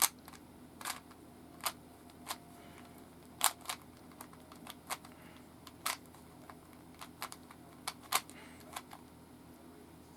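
Plastic Rubik's Cube being twisted and handled: a dozen or so sharp, irregular clicks of its layers turning and snapping into place, the loudest right at the start.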